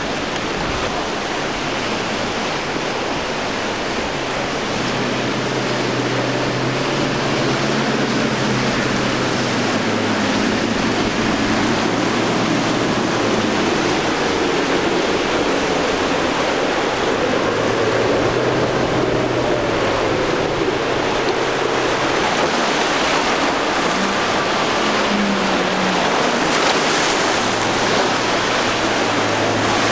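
Surf and rushing water with the steady drone of outboard boat engines running past; the engine note swells and then fades through the middle.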